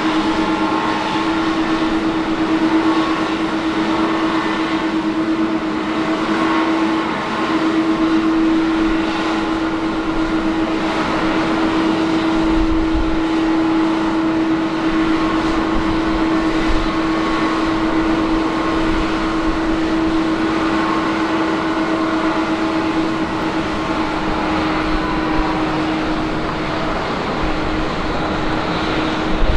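Rolls-Royce Trent 1000 turbofan engines of a Boeing 787-8 running at taxi idle as the airliner rolls along the taxiway. The engines give a steady whine with one constant tone and fainter higher tones over a rushing noise.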